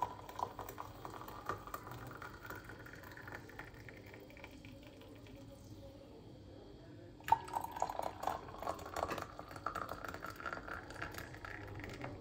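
Hot water poured from a steel kettle into Turkish tea glasses, each pour rising in pitch as the glass fills. One pour runs over the first couple of seconds; a second starts about seven seconds in.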